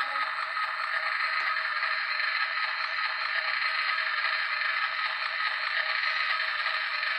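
Steady sizzling hiss from a toy cooking set's small speaker, the frying sound effect of a pretend egg in the pan.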